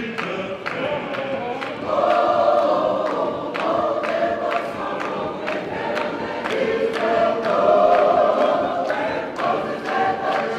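Congregation singing together as a choir, with steady claps keeping time at about two a second.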